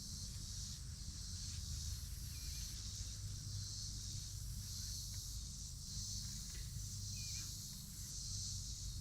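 A steady high-pitched chorus of insects, swelling and easing every couple of seconds, over a low rumble, with a couple of faint short bird chirps.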